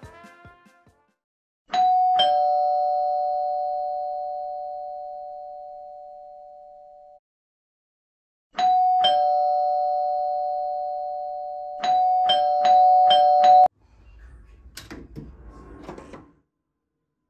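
Aiphone apartment video intercom chiming its two-tone ding-dong doorbell. It rings once and is left to die away, rings a second time, and then the button is pressed several times quickly before the chime cuts off abruptly. After that, the front door's metal lever handle and lock click and rattle as they are opened.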